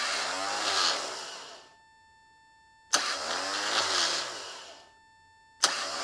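Car starter motor on a bench test stand, run three times with no engine attached. Each run opens with a sharp click as it engages, then the motor whirs up and winds down over about two seconds; the third run is still going at the end.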